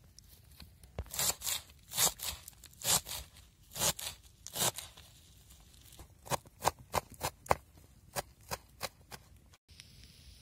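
Kitchen knife cutting a bunch of fresh green herbs on a plastic cutting board. Slower crunching cuts, roughly two at a time, come first, then a quick run of about a dozen chops that stops shortly before the end.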